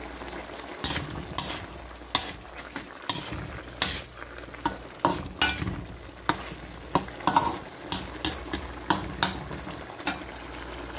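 A plastic slotted spatula stirring vegetables and fish in a metal frying pan. It scrapes and knocks against the pan in irregular strokes, about one or two a second, over the steady sizzle of the simmering liquid.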